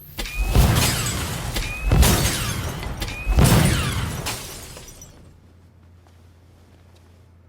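Three heavy crashing impact sound effects, about a second and a half apart. Each is preceded by a short rising chirp, and the last trails off over a second or so.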